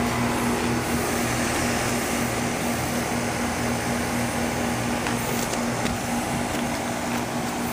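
Outdoor air-conditioning condensing unit running: a steady low hum under the even rush of its fan.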